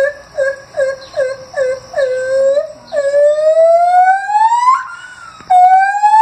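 Gibbon song: a run of short hooting notes, about two and a half a second, gives way to long notes that rise slowly in pitch. After a short break about five seconds in, another rising note begins.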